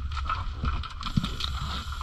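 Muffled underwater noise as picked up by a camera in its underwater housing: a steady low rumble with a faint hum and scattered small clicks and knocks.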